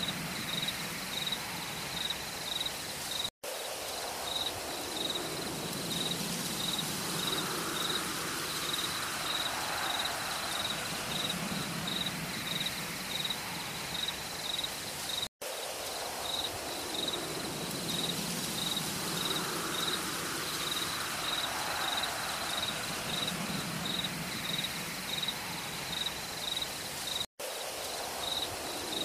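Looped forest ambience: a high chirp pulsing about twice a second over a steady hiss, with low calls swelling every couple of seconds. The loop repeats every twelve seconds, cutting out for a moment each time.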